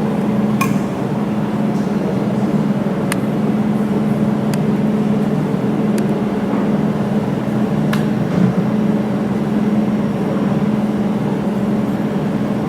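Jewelry laser welding machine humming steadily from its cooling unit, with about five sharp single clicks one to two and a half seconds apart as the laser pulses fire on a stainless steel sample.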